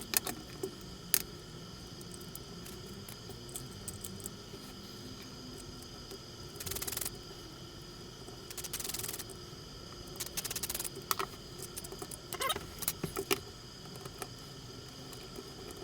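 Small parts of a radio-controlled car chassis being handled: scattered sharp clicks and light rattles, with three short rustling bursts about halfway through and a run of quick clicks near the end.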